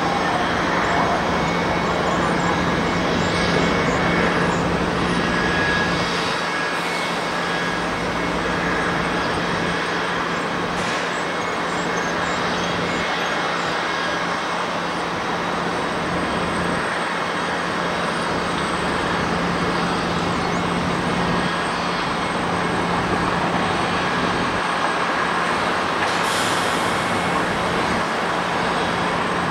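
Steady jet engine noise from a narrow-body airliner landing and rolling out on the runway, with a constant low hum underneath.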